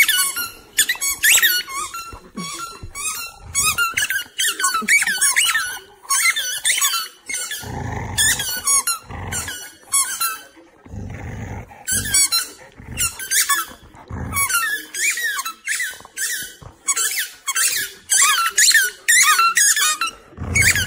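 Two dogs chewing rubber squeaky ball toys, making rapid runs of short, high, wavering squeaks that overlap and alternate, with brief pauses. A few short low rumbles come in the gaps.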